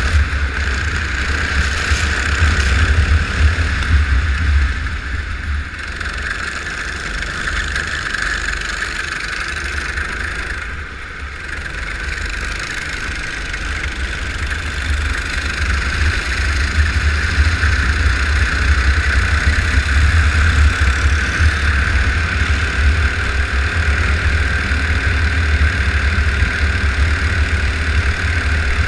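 Go-kart engine running continuously over a strong low rumble. The level dips briefly about five and eleven seconds in, then builds again.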